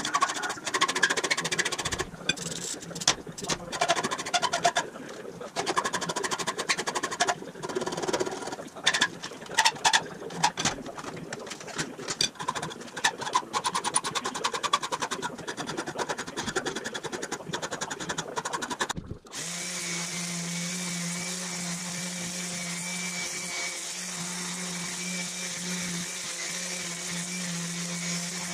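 Hand filing and abrasive-strip sanding on an aluminum gas cap held in a vise: irregular back-and-forth rasping strokes. About two-thirds of the way in this switches abruptly to a random orbital sander running at a steady hum.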